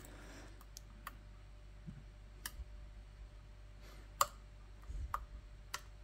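Lock pick clicking against the pins of an ASSA oval pin-tumbler cylinder as they are worked and set under tension. There are about six light, scattered clicks, and the loudest comes about four seconds in.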